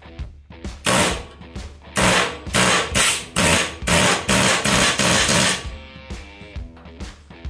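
A hand-held power tool run in a string of short bursts, about two to three a second, starting about a second in and stopping near the six-second mark. Rock guitar music plays underneath.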